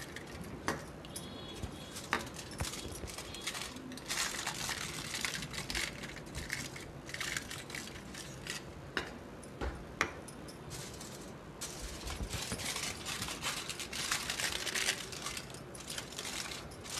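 Aluminium foil crinkling and crackling as it is pressed tightly around the rims of small steel tumblers, with scattered sharp clicks of the steel cups being handled on the countertop.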